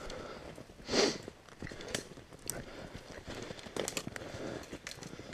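Footsteps crunching through fresh snow and brush, with scattered small clicks and crackles and a louder rustle about a second in.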